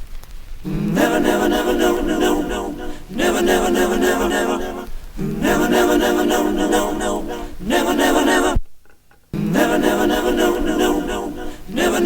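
Chopped sample of singing, taken from a vinyl record, played back on a Roland SP-404SX sampler as short phrases about two seconds long that repeat one after another. Near the middle the playback cuts out suddenly for under a second, then starts again.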